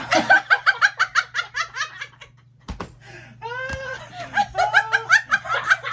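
Hearty laughter in rapid ha-ha pulses, breaking off briefly about two and a half seconds in with a single knock, then starting up again.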